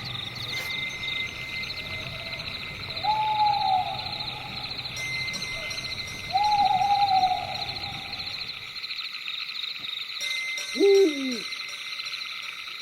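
An owl hooting: two single notes, each about a second long and dropping slightly in pitch, over a steady, pulsing high chirring. Near the end comes a louder call that slides steeply down in pitch.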